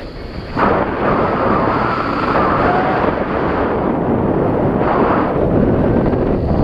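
Wind buffeting the microphone: a loud, steady rush of air that is weaker for the first half second, then picks up and holds.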